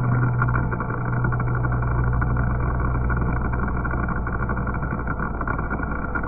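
CNC vertical machining centre face-milling a block of 6000-series billet aluminium: a steady, rough cutting noise as the cutter chews through the metal.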